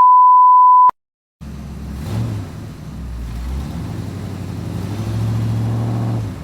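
A loud, steady one-second censor beep at a single pitch that cuts off sharply. After a short gap comes a low rumble, like an engine, that grows louder and holds near the end.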